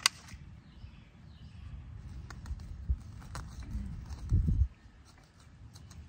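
Hands and a loose soil scoop working garden-bed soil while planting seedlings: a sharp click at the very start, then light scrapes and taps, and a short low rumble about four and a half seconds in.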